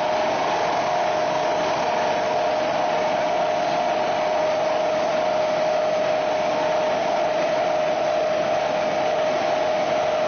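CNC double-end boring and milling machine running: a steady whine over an even hiss, holding level throughout.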